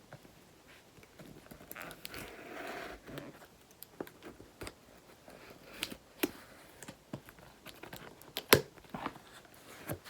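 A shipping package being cut and opened by hand: a longer tearing, scraping sound about two seconds in, then scattered crinkles, taps and clicks, the loudest a sharp click about eight and a half seconds in.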